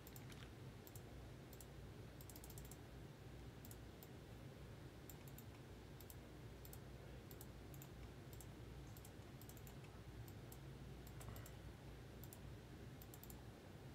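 Faint, irregular clicking of a computer keyboard and mouse, some clicks coming in quick little runs, over a low steady hum.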